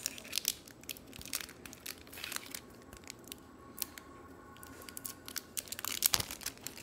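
Foil trading-card booster pack wrapper crinkling, with irregular sharp crackles, as fingers pick at and bend its sealed top, trying to tear it open.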